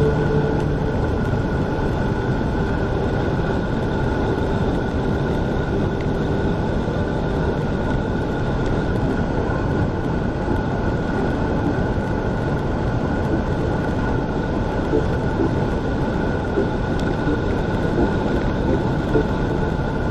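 Wind rushing over an action camera's microphone and road-bike tyres rumbling on asphalt during a descent at about 50 km/h, a steady noise with a faint high whine running through it.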